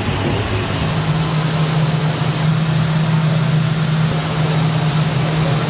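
Steady mechanical hum over a broad hiss, with a low drone that sets in about a second in and holds.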